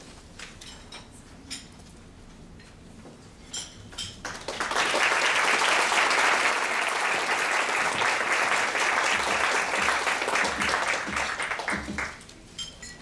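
Audience applauding: a few scattered claps, then full applause breaks out about four seconds in and dies away near the end.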